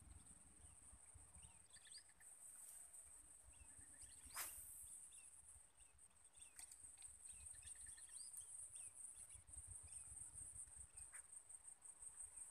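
Faint outdoor ambience: a steady high-pitched insect drone with scattered small bird chirps, and one sharp click about four seconds in.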